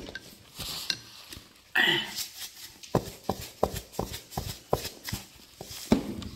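Seasoning shaker shaken over a plate of food: a run of sharp knocks, about three a second for roughly two and a half seconds, starting about three seconds in. A short hissing sound comes just before, about two seconds in.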